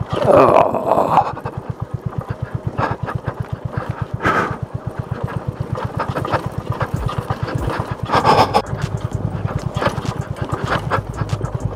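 Motorcycle engine running steadily at low revs on a rough off-road track, its exhaust pulsing evenly, with a few brief louder bursts of noise over it.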